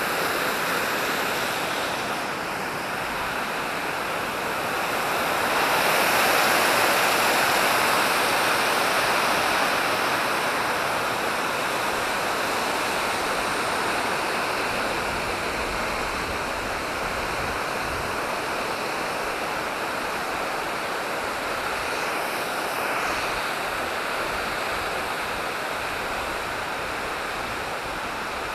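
Water rushing down a concrete spillway and channel in a steady roar, loudest a few seconds in and easing slightly after.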